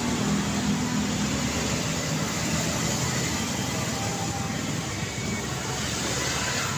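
Steady road traffic noise on a busy street. A vehicle engine is close by at the start and fades over the first couple of seconds.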